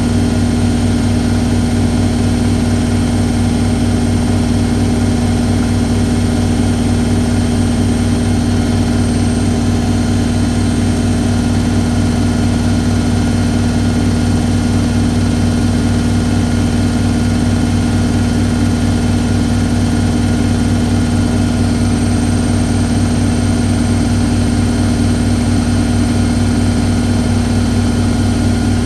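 Hoover A3190 Electron 1100 De Luxe top-spin washing machine in a high-speed spin: a loud, steady hum and whir that holds an even pitch throughout.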